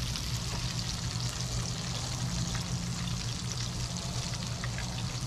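Breaded fish frying in oil in a skillet on a portable burner: a steady sizzle with a low hum underneath.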